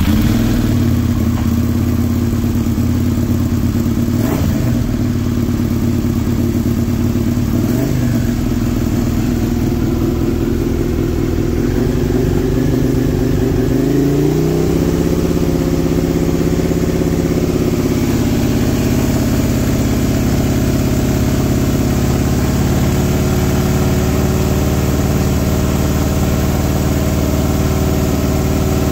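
Second-generation Suzuki SV 90-degree V-twin running just after start-up, with a few short throttle blips, then brought up about halfway through and held steady at a higher speed: the engine is being kept near 5,000 rpm for a stator AC output test.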